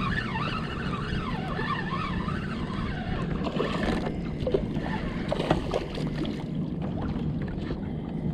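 A spinning reel is cranked steadily as a fish, a ladyfish, is reeled in. Its whir wavers over a steady low rumble of wind on the microphone and water against the kayak. A few sharp knocks or splashes come about halfway through.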